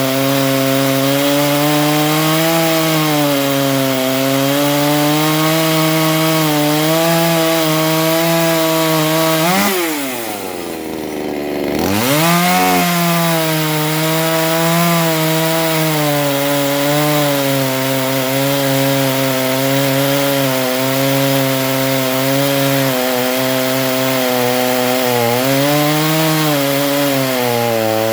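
A neo-tec NH841 two-stroke chainsaw running at full throttle while cutting a hardwood log, its engine still tight from running in, the pitch wavering under load. About ten seconds in, the engine note drops sharply for a second or two, then rises back to full speed.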